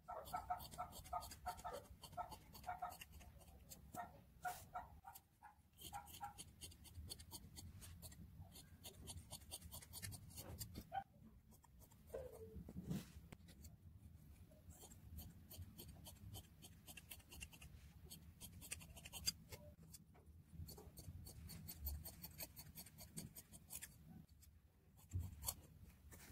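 Scissors snipping through cloth: a long run of faint, crisp cuts, irregularly spaced, as bias strips for piping are cut.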